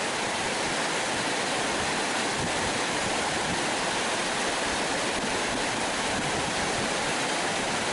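Steady rush of water spilling over a low dam across a creek.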